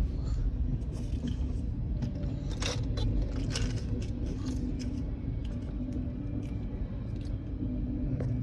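Freight train cars rolling past: a steady low rumble with a faint steady hum, and a cluster of sharp clicks and clanks from the wheels and couplers about three seconds in.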